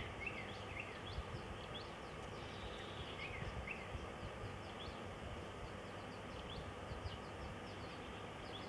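Outdoor ambience: a steady low rumble with small birds chirping in short, quick high notes throughout.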